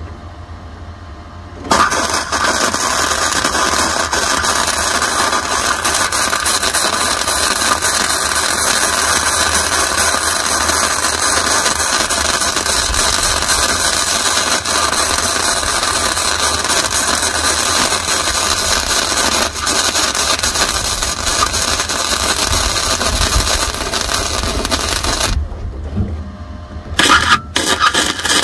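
Electric welding arc from a hzxvogen multi-process welder laying one long continuous bead: a steady crackling hiss that starts about two seconds in and cuts off a few seconds before the end. Two short bursts of arc follow near the end.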